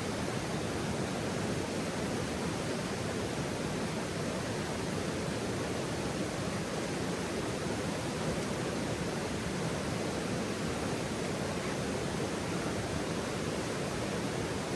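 Steady, even rushing noise with no crackles or pops.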